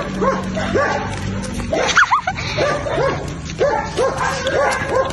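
Dogs barking over and over, about two barks a second, with one louder, higher-pitched yelp about two seconds in.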